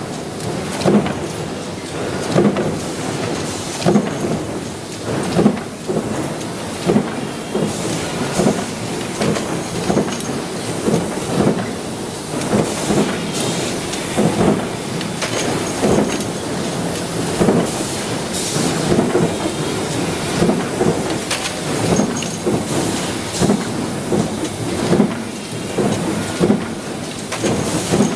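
Automatic press making concealed-hinge parts, cycling in a steady rhythm: a heavy stroke about every one and a half seconds over continuous metallic machine clatter.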